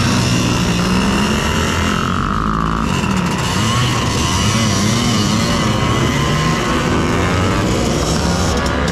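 Several motor scooter engines running together, their pitches wavering up and down as they rev and ease off.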